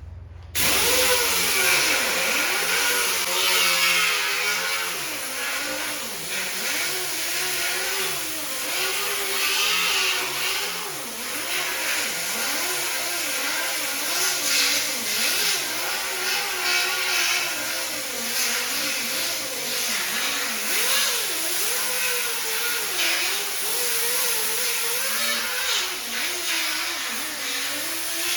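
Handheld power sanding tool grinding down fiberglass on a car body panel. It starts about half a second in and runs on, its motor pitch wavering up and down as the load changes.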